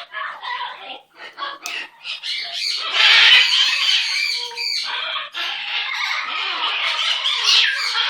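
Pet parrot squawking and warbling in a chattering run of calls, broken up at first, then continuous and louder from about two and a half seconds in.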